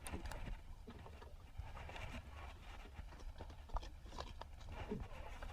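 Scattered light clicks and knocks from fishing tackle being handled on a boat, over a steady low rumble.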